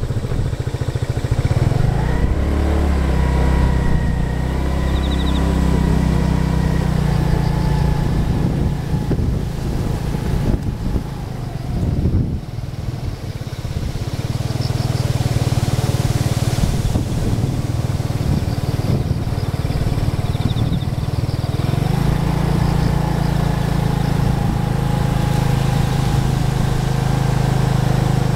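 A motor vehicle's engine running steadily nearby: a loud low hum that drops back briefly about twelve seconds in and then returns.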